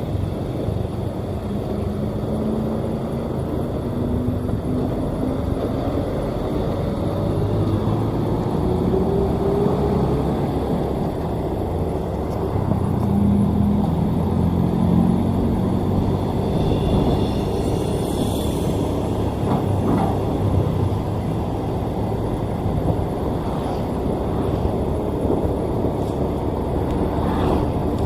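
Road vehicle engines running steadily in traffic noise, one engine's pitch rising steadily over the first ten seconds or so as it speeds up. A brief high-pitched tone sounds about two-thirds of the way through.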